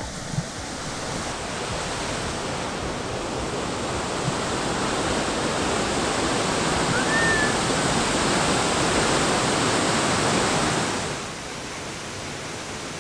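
Waterfall's falling water rushing in a steady, very loud noise that slowly grows louder, then drops off abruptly about eleven seconds in. A single short high whistle sounds once near the middle.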